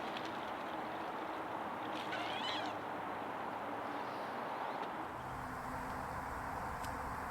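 Steady outdoor background noise with one short, high, mewing bird call about two seconds in. The low background rumble shifts at about five seconds.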